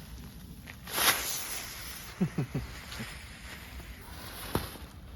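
A small novelty firework hissing as it burns and sprays sparks, starting suddenly about a second in and fading away, with a sharp pop near the end.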